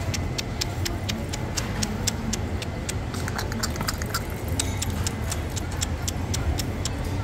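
Rapid, fairly regular clicking of plastic as two puppies chew and tug at a ring toy of plastic beads, about three to five clicks a second, over a steady low background hum.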